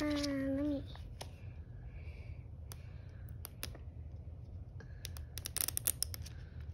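A child's short voiced "ohh" at the start, then fingers picking and scratching at the seam of a plastic Rainbocorns surprise egg: scattered clicks that turn into a quick run of crackling clicks near the end.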